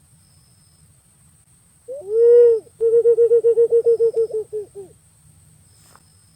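Green pigeon (punai) call: one long mellow whistled note that rises and falls, then a fast run of about a dozen short hooting notes that fade away.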